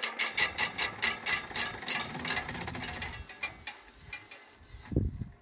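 Cummins diesel engine of a 250 kVA generator set knocking in a fast, even rhythm, about nine beats a second, that slows and fades out over the first few seconds as the engine comes to a stop. A single low thump follows near the end.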